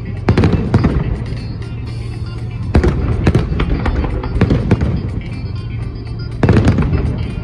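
Fireworks salute going off: three volleys of bangs with crackling, about a third of a second, three seconds and six and a half seconds in, over music playing throughout.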